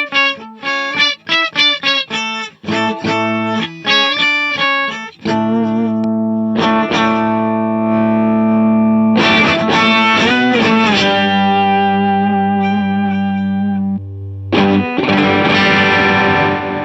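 Electric guitar played through a pedalboard of effects. It opens with a quick run of separate picked notes, then moves to distorted chords that are left to ring and are struck again twice.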